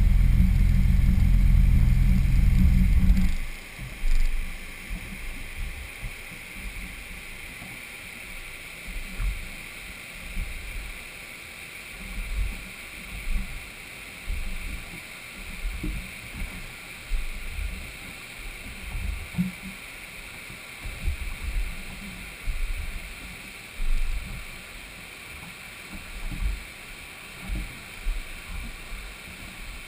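Jet ski engine running steadily, then shut off abruptly about three seconds in. After that there are only irregular low buffets and a steady hiss of the moving river water.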